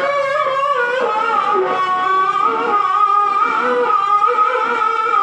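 A qari's voice holding long, wavering melismatic notes in Qur'anic recitation (tilawah).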